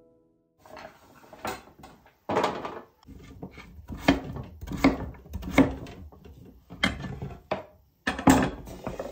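Kitchen knife cutting butternut squash on a wooden cutting board, a string of sharp knocks about once a second, as the cubes are chopped and pushed off the board onto a metal baking sheet.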